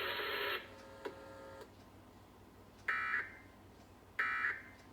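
Emergency Alert System end-of-message data bursts: two short, raspy buzzes about a second apart in the second half, the digital signal that closes the alert. Before them, a burst of broadcast noise cuts off about half a second in.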